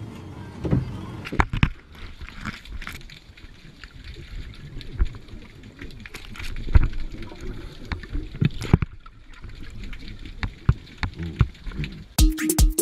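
Underwater bubbling and gurgling from scuba divers' exhaled air, with a few sharp knocks. Electronic music with a steady beat comes in near the end.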